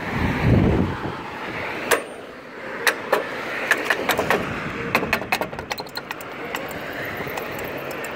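Street traffic going by, loudest as a low rumble in the first second, with a run of sharp, irregular clicks over it, most of them in the middle of the stretch.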